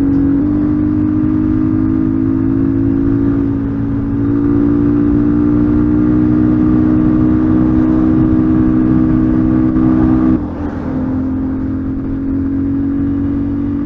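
A 250 cc enduro motorcycle's engine running steadily under way. Its pitch steps up slightly about half a second in, dips and rises again around four seconds, then drops sharply with the level at about ten seconds as the throttle is eased.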